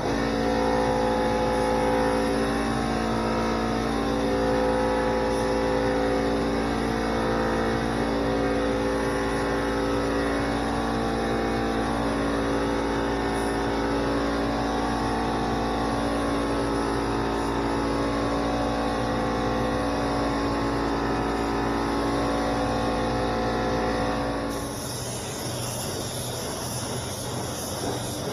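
A small 21-gallon air compressor running, a steady motor-and-pump hum, as the LVLP spray gun lays down base coat. About 25 seconds in the compressor stops, leaving the hiss of air from the spray gun.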